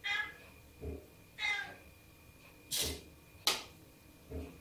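Domestic cat meowing twice, two short calls about a second and a half apart, followed by two sharp knocks.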